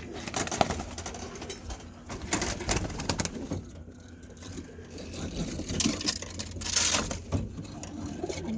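Birmingham Roller pigeons cooing in the loft, over scattered clicks and rustling, with a louder rush of noise about two-thirds of the way in.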